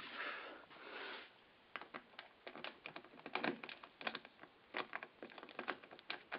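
Keys on a ring jingling and clicking as a key is pushed into and worked in a school bus's ignition lock: a run of irregular sharp clicks, after a brief rustle of movement in the first second.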